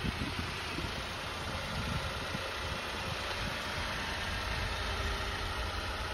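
A 1996 Honda Acty mini truck's small three-cylinder engine idling steadily, a low even rumble with no revs or changes.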